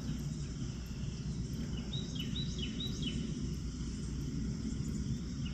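A pig rooting in the ground, a steady low rustle, with a few quick bird chirps about two seconds in.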